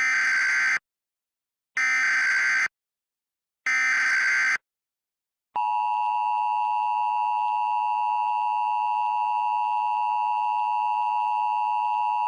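Emergency Alert System SAME header: three short digital data bursts, each just under a second, that encode the alert for receivers. About five and a half seconds in, the steady two-tone EAS attention signal starts and holds.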